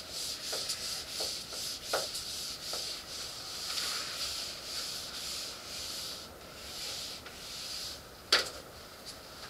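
A felt whiteboard eraser rubbing across a whiteboard in repeated back-and-forth strokes, easing off about six seconds in. A single sharp knock comes near the end.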